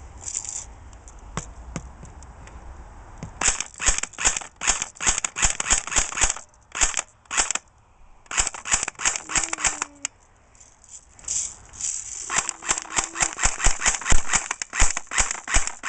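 Electric airsoft pistol (Crosman ERO1) firing rapid semi-automatic shots, about three or four sharp snaps a second, in two long strings with a short break about ten seconds in.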